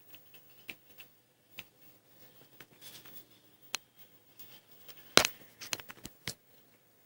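Light, irregular taps and clicks of a Sphynx kitten batting a ball around, with a louder cluster of knocks a little past five seconds in.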